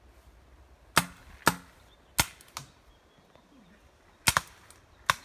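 Paintball marker shots: about seven sharp pops at irregular intervals, some in quick pairs, each dying away quickly.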